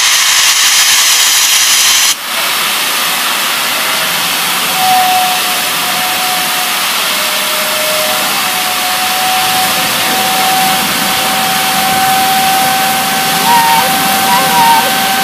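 GWR Hall Class 4-6-0 steam locomotive blowing off steam with a loud hiss, which stops abruptly about two seconds in. A softer, steady hiss of steam carries on after it, with a faint thin steady tone.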